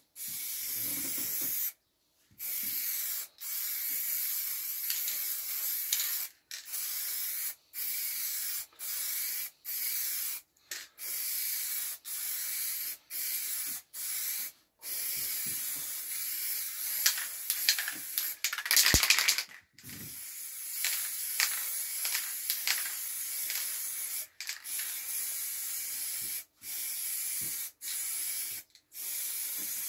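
Aerosol spray-paint can hissing in repeated bursts of about a second each, with short breaks between them. A cluster of clicks and one sharp knock come about two-thirds of the way through.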